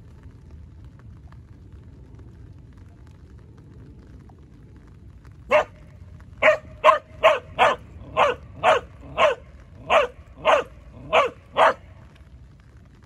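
A border collie barking on cue: about a dozen short, loud barks, roughly two a second, starting about five seconds in.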